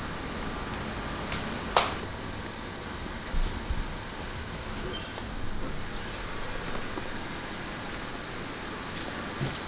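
Steady background noise of a car repair shop, with one sharp click about two seconds in and a couple of duller knocks a second and a half later.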